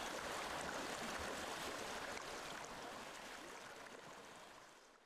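River water running, a steady rushing that fades away over the last couple of seconds.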